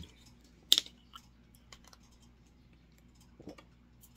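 Plastic water bottle handled while drinking: one sharp plastic click a little under a second in, then a few light crackles and clicks.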